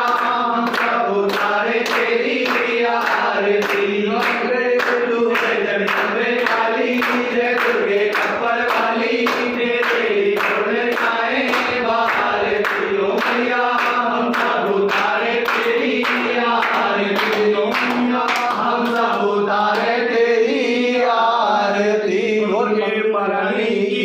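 A small group of men singing a Hindu devotional hymn in unison, clapping their hands in a steady beat of about two claps a second; the claps thin out near the end while the singing goes on.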